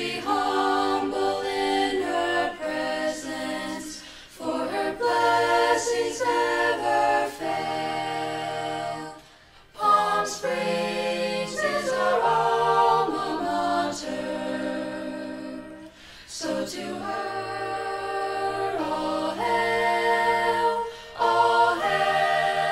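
Choir singing the school alma mater a cappella, held chords phrase after phrase with short breaks between them.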